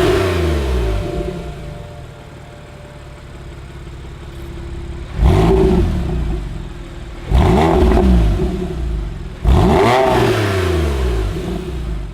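Porsche 997 flat-six revving through a Speedart X-pipe sport exhaust. An engine note dies away at the start, then three sharp throttle blips come about two seconds apart, each rising and falling back.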